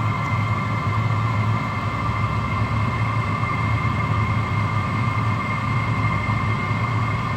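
5 kW Chinese diesel air heater running steadily as it warms up: an even hum from its combustion and blower fan, with a constant high whine over it.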